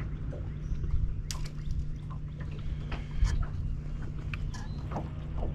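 Scattered sharp clicks and knocks of a person moving about and handling gear on a boat's front deck, over a steady low hum.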